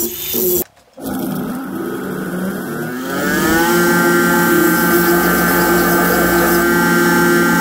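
An angle grinder's disc grinding on a steel tube for about half a second, then a short break. A belt grinder's motor spins up with a rising whine about three seconds in and settles to a steady running tone.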